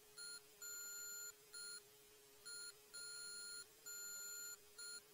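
Morse code keyed as a single steady beeping tone: seven beeps in two groups, short-long-short and then short-long-long-short, the letters R and P. A faint steady hum sits underneath.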